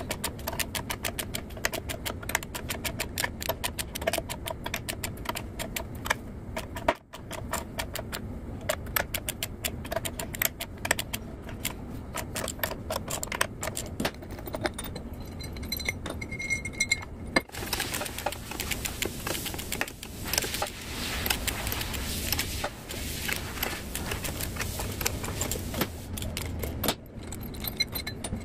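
Hand socket ratchet clicking in quick runs as the bolts of a seal-installer plate on a Cat 3406 diesel's front are turned, with light metallic tool clinks. The plate presses in the front crankshaft oil seal.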